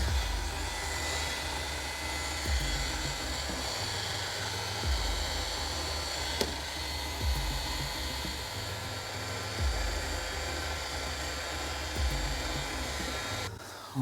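Hot air gun blowing steadily at about 50 °C, used to soften glue on a plastic door-panel bracket. It cuts off shortly before the end.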